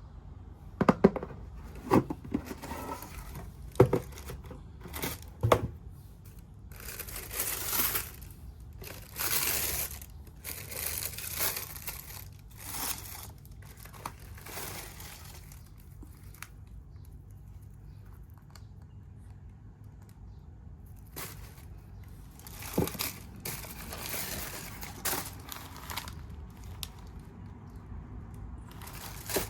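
Packaging of a pair of sandals being opened and unwrapped by hand: a few sharp knocks at first, then paper crinkling and tearing in stretches, with a quieter lull midway before more rustling and knocks.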